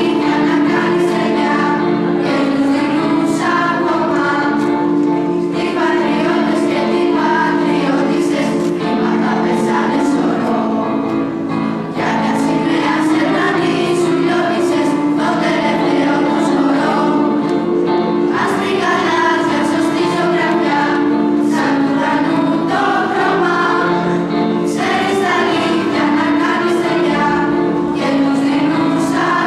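Children's school choir singing a song together, the singing going on without a break.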